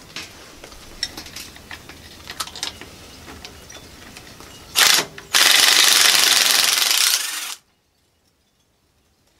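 Metal tool work on a backhoe's bucket pivot pin: light metallic clicks and knocks, then a sharp knock about five seconds in and a loud, harsh mechanical noise lasting about two seconds that cuts off suddenly.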